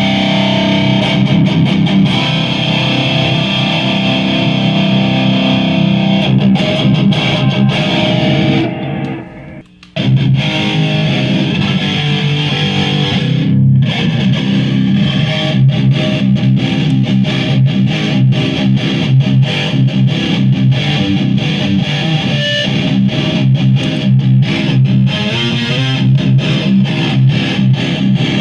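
Distorted electric guitar playing a low, fast-picked metal riff on a Schecter Damien Elite's bridge EMG pickup through a Marshall JCM 2000 DSL amp on high gain. It starts on the amp's own distortion, and from about two-thirds of the way an Ibanez Tube Screamer Mini overdrive is added in front. About nine seconds in, the notes ring out and fade briefly before the riff starts again.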